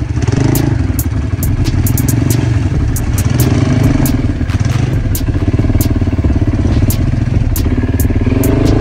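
Quad bike (ATV) engine running over a rough, muddy trail, its pitch swelling and easing with the throttle, with frequent sharp knocks and clatter from the jolting ride.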